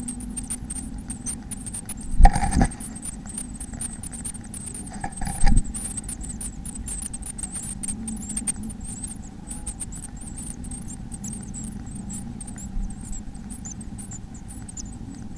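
Birds inside a nest box: continuous rapid high-pitched cheeping, with two loud thumps about two and five seconds in, over a steady electrical hum from the nest-box microphone.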